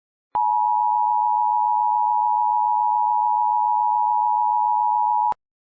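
Emergency Alert System attention signal: two steady tones sounding together, held for about five seconds and switched on and off abruptly with a click at each end. It signals that an emergency alert message follows.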